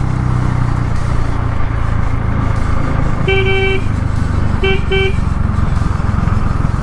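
Bajaj Dominar 400's single-cylinder engine running steadily under way, with a vehicle horn honking: one half-second honk about three seconds in, then two short toots a second later.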